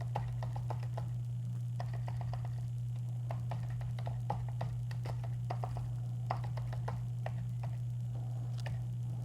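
Computer keyboard typing: scattered light key clicks in small irregular clusters, over a steady low hum.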